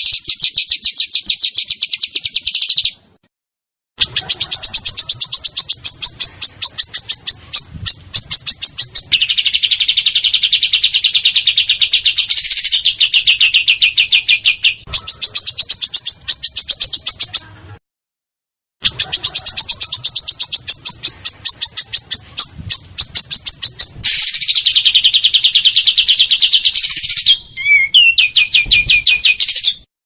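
Songbird singing long, fast rolling trills of rapidly repeated high, sharp notes. It comes in several runs broken by abrupt silent gaps, about three seconds in and again a little past the middle.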